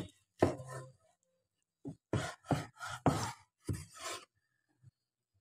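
Cleaver blade scraping across salmon skin on a wooden cutting board, about six short rasping strokes, scraping off the scales.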